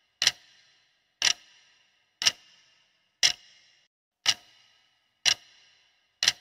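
Countdown timer's clock-tick sound effect: seven sharp ticks evenly spaced one second apart, each with a short ringing tail, marking off the seconds left to answer.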